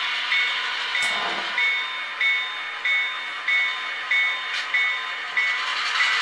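HO-scale Athearn GP38-2W model locomotive's DCC sound decoder playing a running diesel engine with the locomotive bell ringing steadily, about one and a half strikes a second. A sharp click about a second in.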